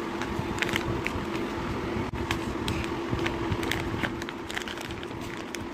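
Plastic dog-treat pouch crinkling and crackling as hands tear it and pull it open: an irregular scatter of sharp crinkles over a steady low hum.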